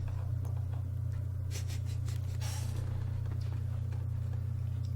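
Paper rustling twice as the pages of a doujinshi book are handled, over a steady low hum.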